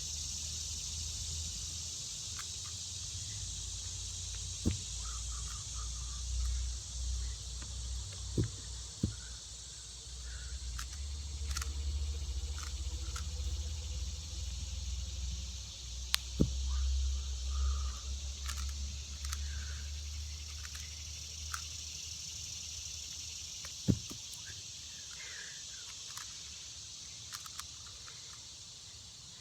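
Outdoor ambience: a steady high drone of insects with a low wind rumble on the microphone, broken by a few scattered short thuds and clicks.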